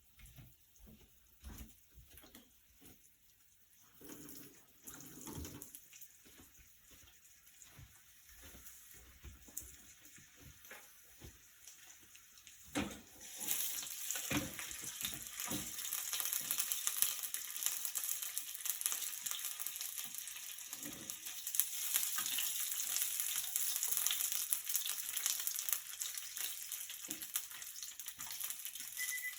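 Food frying in a pan, a steady crackling sizzle that starts suddenly about halfway through. It follows a stretch of quiet scattered knocks and clatter.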